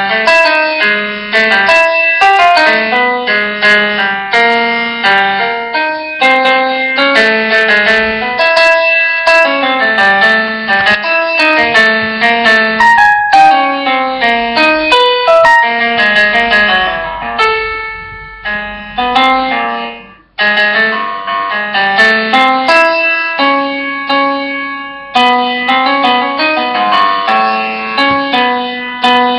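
Background piano music: a melody of separate, overlapping notes, with a brief break about twenty seconds in.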